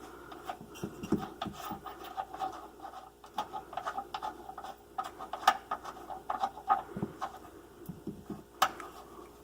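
Irregular small metallic clicks and scrapes as a 15 mm nut holding the bumper assembly to the frame rail is worked off its stud, with one sharper click near the end.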